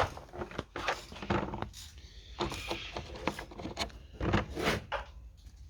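Scattered clicks, knocks and clinks of hand tools and metal engine parts being handled during an engine teardown, with a louder knock right at the start and a few louder knocks past the middle.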